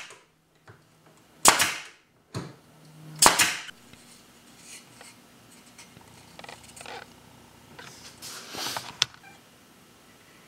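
Sharp, loud strikes on the wooden parts of a homemade bar clamp, three in the first four seconds about two seconds apart, followed by lighter knocks and clatter as the wooden clamp parts are handled.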